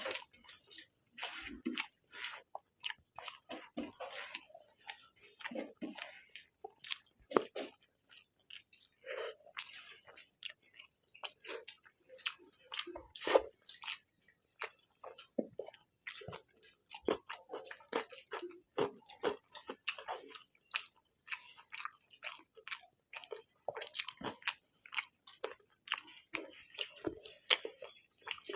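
People chewing and eating rice and egg curry, with many short, irregular wet clicks and smacks of mouths and food.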